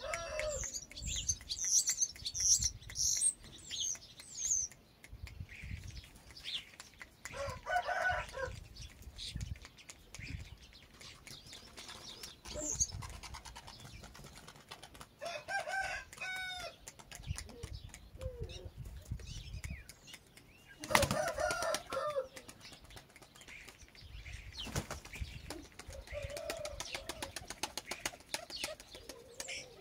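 Chickens calling off and on, a handful of short calls about a second long, the loudest about two-thirds of the way through, with high chirps near the start, over a low gusty rumble.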